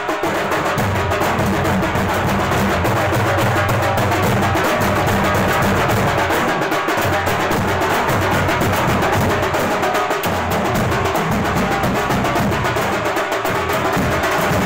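A street drum troupe playing large bass drums and smaller side drums with sticks: fast, dense, continuous drumming with no pause.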